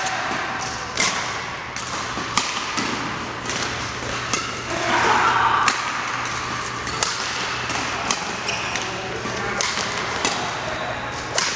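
Badminton rally: rackets strike a shuttlecock back and forth, a sharp crack every second or so, about a dozen hits in all.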